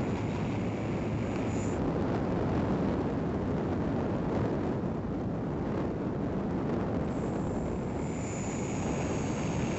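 Steady rushing air noise aboard an EasyGlider radio-controlled motor glider in flight. A faint high whine comes in about seven seconds in.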